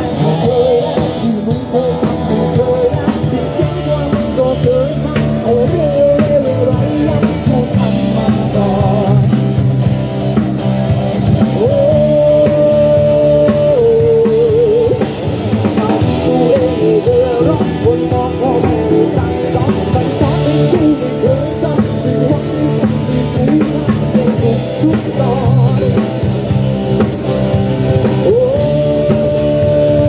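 Live band playing through a PA: singing over acoustic and electric guitars and a drum kit, with long held sung notes about twelve seconds in and again near the end.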